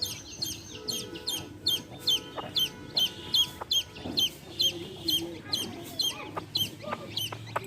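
Baby chicks peeping, a rapid run of high, downward-sweeping peeps about three a second, with a hen clucking low beneath them.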